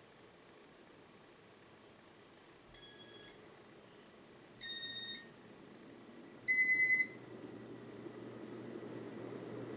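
Three short electronic beeps about two seconds apart, the last one loudest, from the 1987 Casablanca Cambridge ceiling fan's early RMM2 control. After the third beep a low electrical hum comes up and grows steadily louder.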